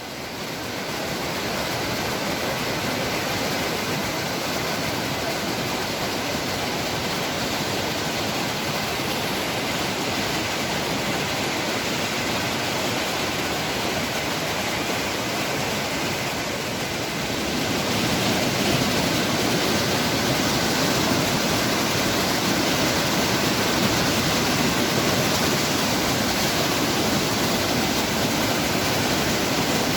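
Waterfall: a steady, even noise of falling water, a little louder from just past halfway.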